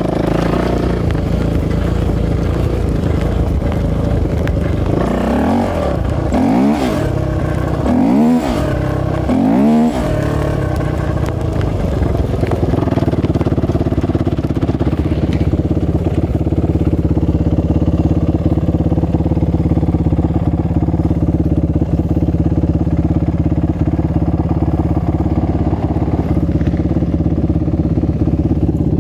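A 450cc four-stroke single-cylinder off-road engine running, revved up and back down three times in quick succession about five to ten seconds in, then holding a steady speed.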